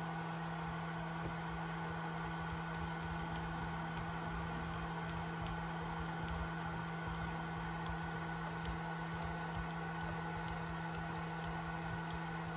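Steady electrical hum with a background hiss, and faint light clicks scattered through it.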